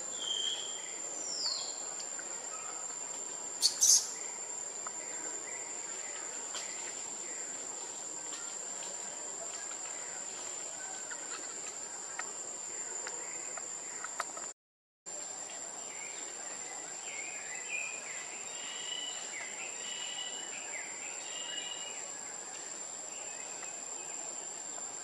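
Steady high-pitched insect drone with scattered bird chirps and whistles. Near the start there is a brief loud double squeak, and about halfway the sound cuts out for a moment.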